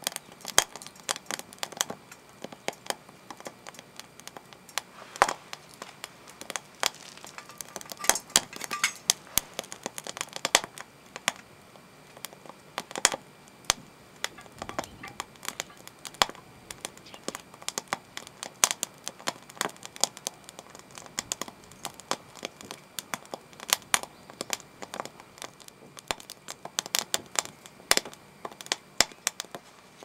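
Wood fire in small camp stoves crackling, with many sharp, irregular pops several times a second.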